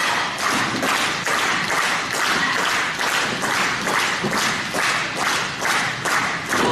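Arena crowd clapping together in a steady rhythm.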